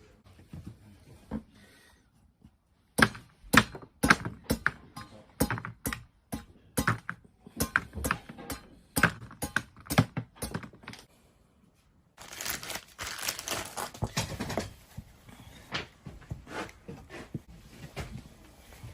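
A series of sharp knocks or thunks, roughly two a second, for about eight seconds, followed by a couple of seconds of rough rustling or scraping noise and a few scattered knocks.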